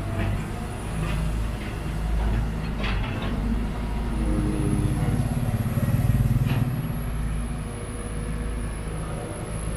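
Sumitomo SH210 excavator's diesel engine running steadily, swelling louder about five to six seconds in, with a few short knocks along the way.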